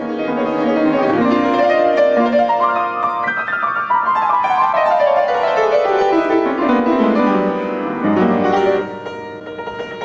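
Solo piano playing a flowing piece, with a long run of notes falling in pitch through the middle, growing softer near the end.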